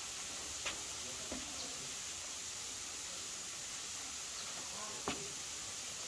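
Steady hiss of forest ambience, with a faint knock about a second in and another near the end.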